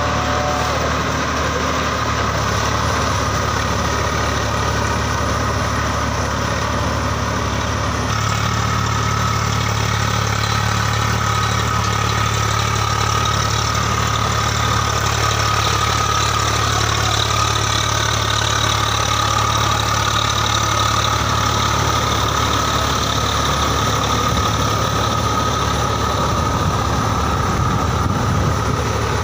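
Swaraj 855 FE tractor's three-cylinder diesel engine running steadily under load as it pulls a Shaktiman rotavator through wet paddy mud.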